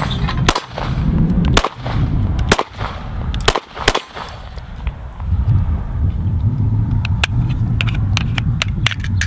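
Mossberg MC1 9mm compact pistol firing a string of about eight shots at an uneven pace over the first four seconds, some in quick pairs. A low rumble and a few lighter clicks follow.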